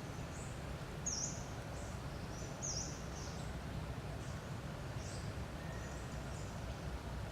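A small bird chirping repeatedly: short, high, quick down-and-up chirps about once a second, over a steady low outdoor rumble.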